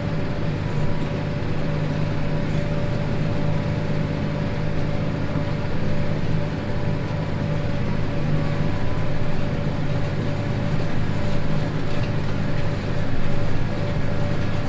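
Diesel engine of a farm machine running steadily at constant speed, with a thin steady whine above its low hum.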